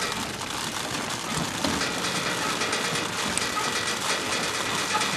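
Seed meters and drive of a Truax no-till grain drill turning as its jacked-up drive wheel is spun by hand, with soybean seed rattling out of the meters into plastic collection bags: a steady, dense clattering rattle.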